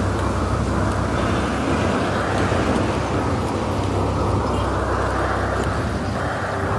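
Steady rumbling run of an odong-odong, a small motorised kiddie train, heard while riding it along a paved path.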